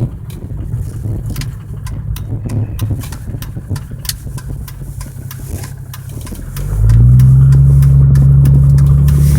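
Vehicle engine running with a rapid irregular ticking. About seven seconds in, a loud steady low-pitched drone suddenly sets in and holds. This is the strange sound the owner says only happens when the engine is cold.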